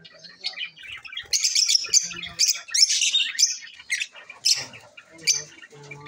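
A mixed flock of lovebirds and budgerigars chirping and squawking, with many short, shrill calls overlapping.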